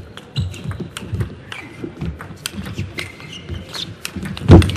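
Table tennis rally: a quick, uneven run of sharp clicks as the celluloid ball strikes the bats and table, with short squeaks of shoes on the court floor. A loud thump stands out near the end.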